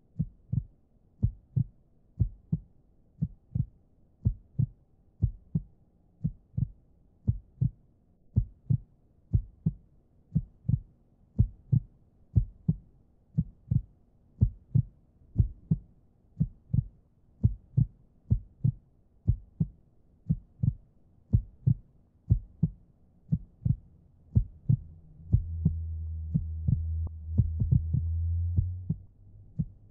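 A heartbeat picked up through a body-worn camera: a steady rhythm of low thumps, nearly two a second. A low steady rumble joins for a few seconds near the end.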